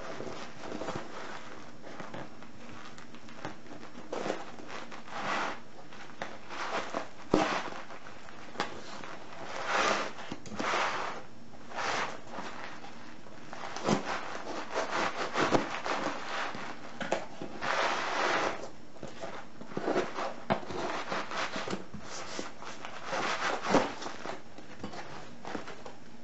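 A taped cardboard parcel being opened by hand: irregular rustling, crinkling and tearing of tape and packaging, with a few sharp clicks and knocks in between.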